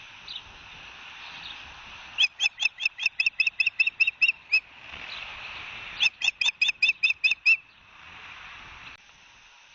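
Osprey calling two runs of sharp, repeated whistled chirps, about five a second, over a steady background hiss.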